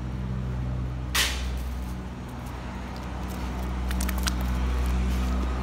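A steady low motor hum runs throughout, with a short hiss about a second in and a few light clicks around four seconds in.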